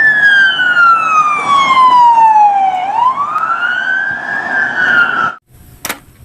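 Police siren wail: one slow fall in pitch over about three seconds, then a rise back up, cutting off suddenly about five and a half seconds in. A single click follows shortly after.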